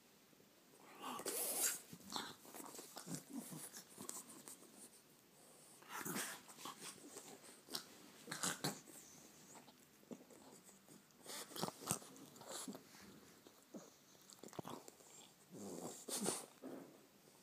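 A French bulldog breathing noisily in irregular bursts as she is rubbed, mixed with the rustle of a hand on her fur and on a fleece blanket.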